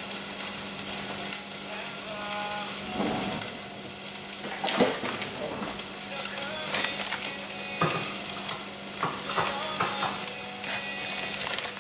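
Plastic bag crinkling and light rustles and taps as coconut flakes are pinched out and sprinkled over batter in a muffin tin, over a steady hiss and a faint hum.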